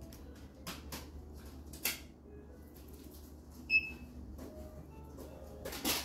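A few light clicks and knocks over a low steady room hum, the loudest near the end; one about two-thirds of the way through has a brief ringing ping.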